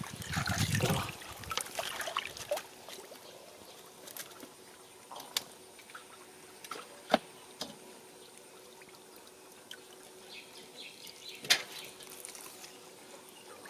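Water splashing and dripping as fish are handled in a plastic basket in shallow water. It is loudest in the first couple of seconds, then thins to scattered small splashes and drips.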